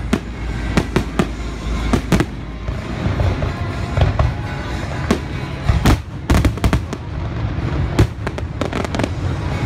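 Fireworks display with aerial shells bursting overhead: a quick, irregular string of sharp bangs, several a second.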